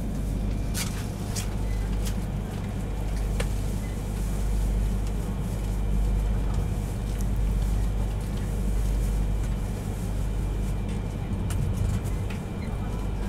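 Steady low rumble of a Yamagata Shinkansen Tsubasa train running at speed, heard inside the passenger car, with a few faint clicks in the first few seconds.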